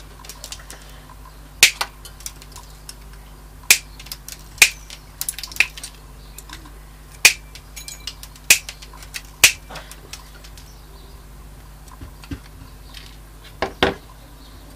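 Chrome-vanadium side cutters snipping off soldered component leads on the back of a circuit board. Sharp snips come every second or two, about nine in all, with a duller double knock near the end.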